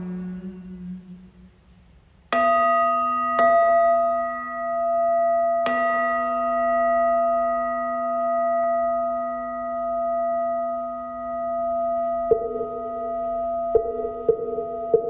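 Buddhist bowl bell struck three times, about a second and then two seconds apart, each strike sharp and then ringing on in a long, slowly wavering hum that marks the close of the chanted invocation. Near the end, a run of light knocks starts over the fading ring.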